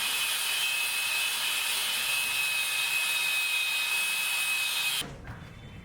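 Handheld power tool, likely a grinder or saw cutting, running steadily with a hissing, high-pitched whine, then stopping suddenly about five seconds in.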